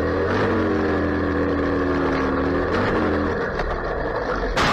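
Motorcycle engine running at steady speed, its pitch easing down as it slows, then a loud sudden burst of noise near the end.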